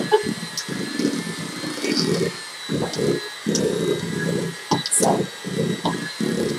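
Electric hand mixer running, its beaters churning a thick cream cheese and whipped topping filling in a stainless steel bowl: a steady high motor whine over uneven, surging churning sounds as the beaters work through the mixture.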